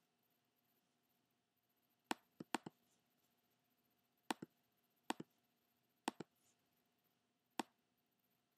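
A laptop trackpad being clicked: about nine short, sharp clicks spread irregularly, several in quick pairs, over faint room tone.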